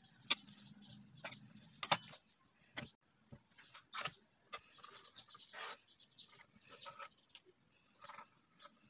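Hands pressing and trimming tart dough in a metal tart pan: scattered soft taps, rubbing and scraping, with two sharp, ringing clinks in the first two seconds.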